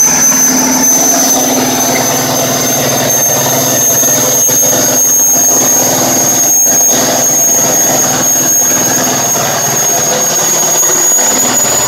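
Large V-type marine diesel engine running steadily on a test stand, with a loud high-pitched whine over the engine note that creeps slowly up in pitch.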